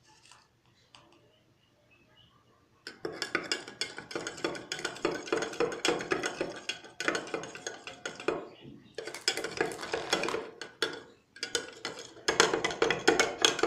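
A spoon stirring and scraping quickly around a bowl, a dense run of clinks and scrapes starting about three seconds in, with two short pauses.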